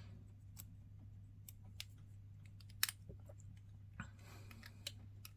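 Hobby knife blade scraping and clicking on a plastic miniature part as mould lines and sprue nubs are cleaned off: faint, scattered small scrapes and clicks, the sharpest click a little under three seconds in and a longer scratchy scrape about four seconds in.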